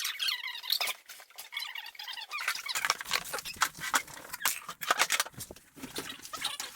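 Several high, wavering squeaks, then from about halfway in a rapid run of knocks and clatter.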